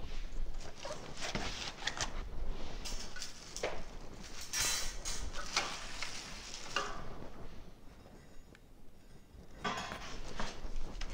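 Cardboard and plastic bags rustling as small grill parts are unpacked, with light clinks and knocks of metal hardware. It goes quieter for a moment about eight seconds in.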